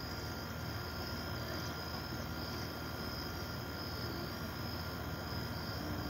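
Crickets chirping steadily in a high pulsing chorus, over a low steady rumble.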